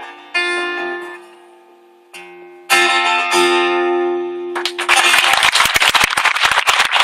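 Guitar playing the last two chords of a song and letting them ring out, then an audience applauding from about five seconds in, louder than the guitar.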